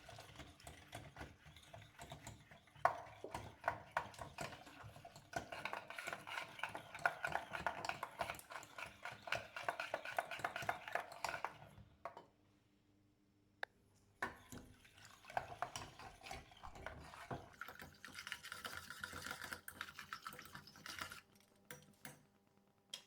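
A utensil stirring a milk, egg and cornstarch custard mixture in a pot on the heat, with quick scraping and clicking against the pot, while it cooks toward thickening. It stops abruptly for about two seconds partway through, then resumes.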